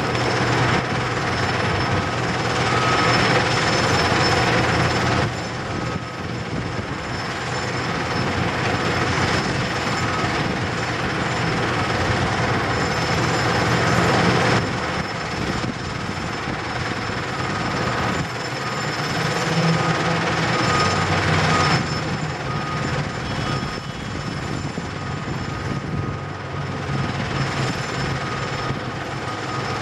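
Caterpillar 325C L excavator's diesel engine running under hydraulic load as it digs and swings its bucket to load a screener, swelling and easing several times, over a steady drone of other site machinery.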